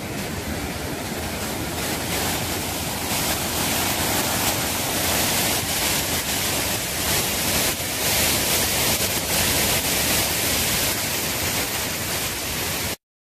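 Water spilling over a concrete river weir: a steady rushing splash that grows louder over the first few seconds and cuts off suddenly near the end.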